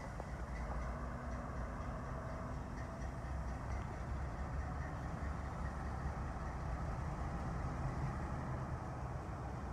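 Diesel train engine running steadily with a low, even rumble.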